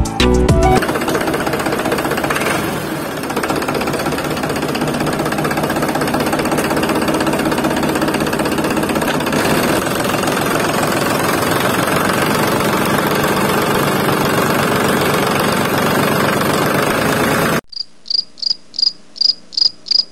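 A tractor engine running steadily with a fast, even knock. Near the end it cuts off abruptly and a cricket chirps in an even rhythm, about three chirps a second.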